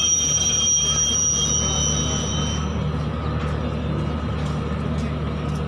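Freight train of covered wagons rolling past with a steady low rumble, its wheels squealing at a high steady pitch that fades out about halfway through.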